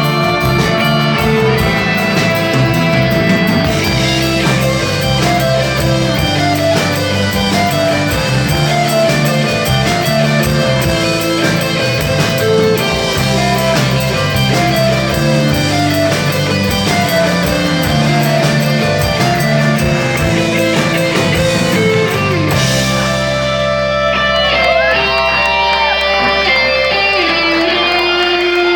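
Rock band playing live, an instrumental passage led by electric guitars over bass and drums. About three-quarters of the way through the drums drop away, leaving a held low note under the guitar lines.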